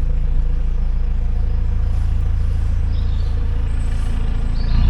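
Narrowboat's diesel engine running steadily at low revs.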